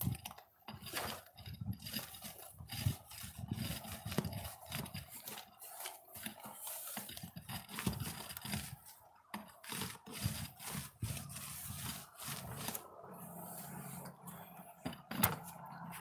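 Paint roller on an extension pole rolling and scraping along the lower edge of a shed wall as it spreads waterproofing coating: a run of irregular scrapes, rubs and light knocks, with one sharp knock near the end.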